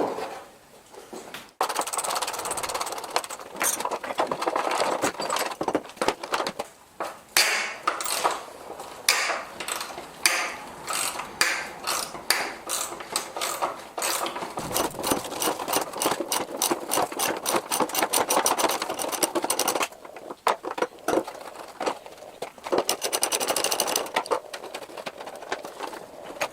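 Metal knocking, clattering and scraping of hand tools working a part loose from a steel lawnmower deck, in irregular runs of rapid taps.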